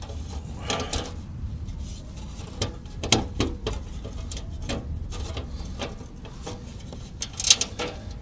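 Metal under panel being shifted and pressed against the car's underbody to line up its bolt holes: scattered scrapes, clicks and light metallic knocks, the loudest one near the end.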